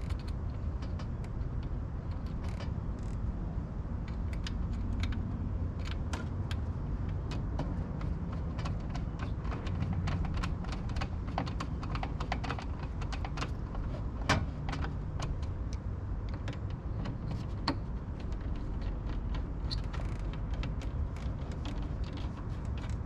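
Scattered light clicks and taps of hardware being handled as screws are driven into the cold air intake parts, with a louder click about 14 seconds in, over a steady low rumble.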